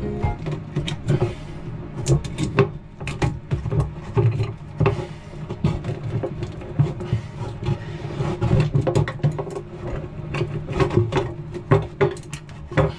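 Irregular knocking and clattering, many sharp taps in quick succession, over a steady low hum.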